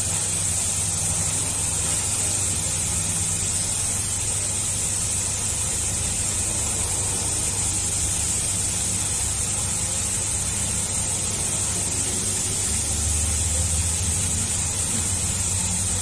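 Steady machine noise: a low hum under a constant high hiss, with no breaks or separate knocks.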